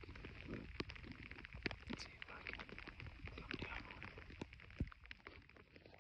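Rain pattering on a hooded rain jacket close to the microphone: a faint hiss with many irregular small taps.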